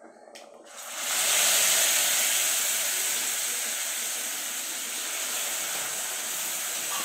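Hot tempering oil with mustard seeds and curry leaves sizzling as wet beetroot masala is poured into the kadai: a loud hiss that starts suddenly about a second in and slowly fades.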